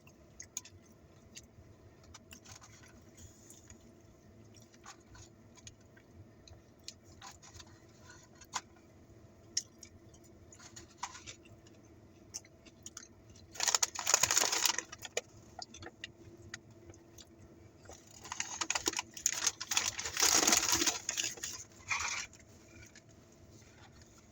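Eating sounds: soft chewing and small clicks from the mouth and from handling food. There are two louder bouts of rustling, a short one about 14 seconds in and a longer one from about 18 to 22 seconds.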